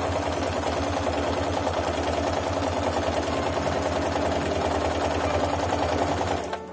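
Singer Promise electric sewing machine stitching steadily at speed, sewing a dense satin stitch with a fast, even run of needle strokes. It stops near the end.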